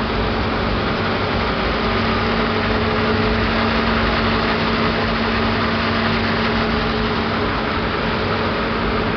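Fruit pomace drying plant machinery running: a steady noise with a constant low hum, unchanging throughout.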